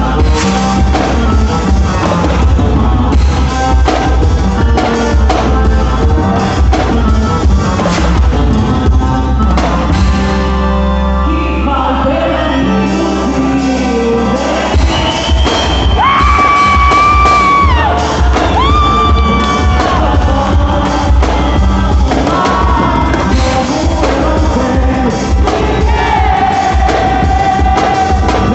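Loud quadrilha dance music with a heavy bass beat and singing, with a few long held high vocal notes a little past the middle.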